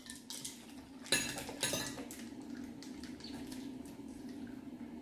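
Forks and spoons clinking and scraping against ceramic dinner plates during a meal, with a few sharper clinks about a second in, over a faint steady low hum.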